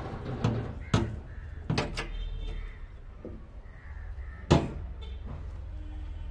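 Sheet-metal cabinet door of a barbecue smoker being worked by hand: a few sharp metal clicks and clanks, the loudest about four and a half seconds in.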